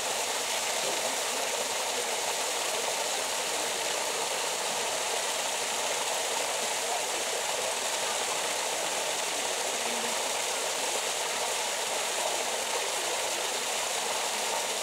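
Water pouring steadily from a wall pipe and splashing into a shallow pool, a constant rushing sound.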